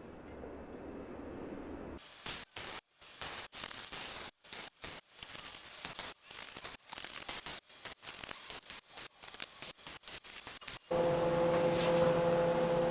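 Irregular, dense crackling typical of a MIG welding arc, starting about two seconds in after a faint hiss. Near the end it gives way to a louder, steady machine hum with a clear tone.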